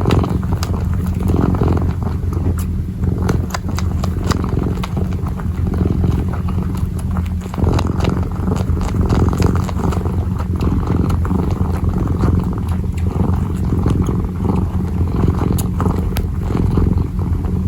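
Kitten purring close to the microphone: a steady low rumble that swells and fades every second or two, with scattered light clicks from its kneading claws.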